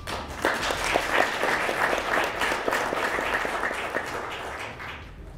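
Audience applauding: many hands clapping at once, starting at once, strongest in the first couple of seconds and tapering off near the end.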